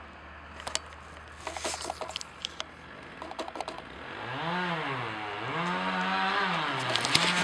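Two-stroke chainsaw revved up and down about three times, starting about four seconds in. Before that there is only a low steady hum and scattered faint clicks.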